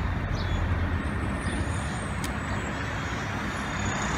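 Steady street traffic noise: an even low rumble of road vehicles with no distinct events.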